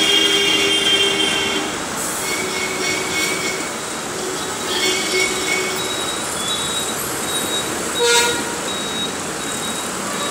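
Road noise from a moving city bus in heavy traffic, with vehicle horns honking: a long horn blast at the start, shorter honks a few seconds in, and a brief sharp sound about eight seconds in.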